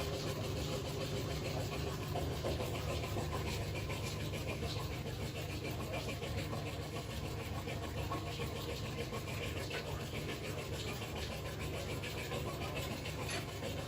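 A motor running steadily, a low hum with a light rattle.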